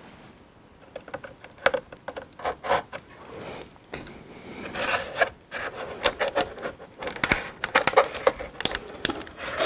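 Cardboard packaging scraping, rubbing and clicking as a utility knife slits the tape and tightly packed cardboard parts are worked loose inside a box. The scrapes come irregularly, starting about a second in and getting busier from about halfway.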